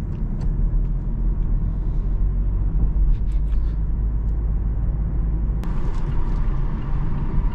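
Cabin sound of a Mazda CX-3 driving school car under way: a steady engine and tyre rumble. There is a single sharp click about three-quarters of the way through, after which the road noise turns hissier.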